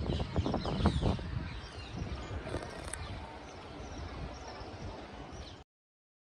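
Outdoor background noise with a few faint knocks in the first second or so, fading slightly and then cutting off abruptly to silence about five and a half seconds in.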